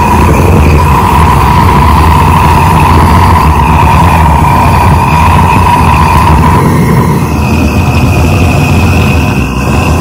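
Kerosene-fired weed burner running with a loud, steady roar and a whistling tone. It is still warming up.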